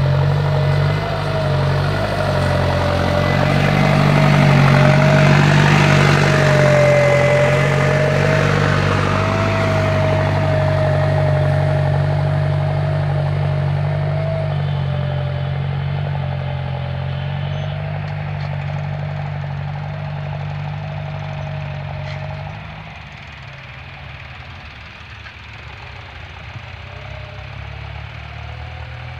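Tractor diesel engine running steadily under load while pulling a tine cultivator through stubble, with a wavering whine over the low drone. It is loudest about five seconds in as the tractor passes close, then fades as it moves away, dropping noticeably about 22 seconds in.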